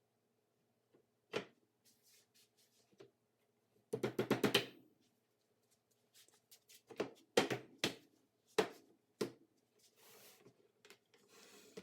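Wooden knocks as pine mortise-and-tenon joints are tapped together in a dry fit. There is a single knock, then a quick rattle of about eight knocks around four seconds in, then about six separate knocks a few tenths of a second apart.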